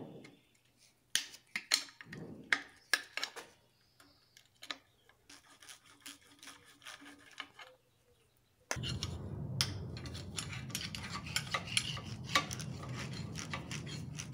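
Ratchet wrench with socket and extension undoing oil-sump bolts: scattered sharp metal clicks and clinks of the tool on the bolts. About nine seconds in, a steady low hum starts underneath and the clicking becomes denser.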